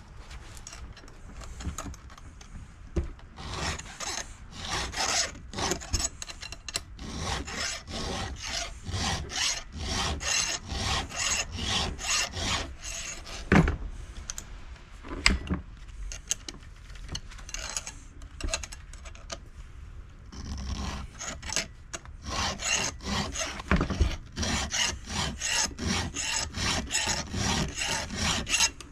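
A round file rasping across the cutters of a chainsaw chain in quick, repeated hand strokes. There are two sharper knocks around the middle, and the strokes are fainter for a few seconds after them.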